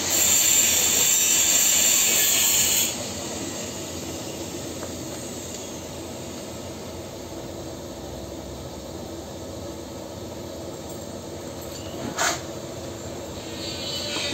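TIG welding on a steel pipe joint, the arc hissing: loud for the first few seconds, then a quieter steady hiss and hum, with a short sharp crack about twelve seconds in and the louder hiss picking up again near the end.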